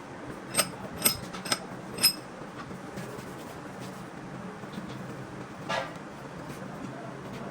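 Four sharp metallic clinks in quick succession, each ringing briefly at a high pitch, like metal tools knocking on metal. About six seconds in comes one short toot, over a steady low hum.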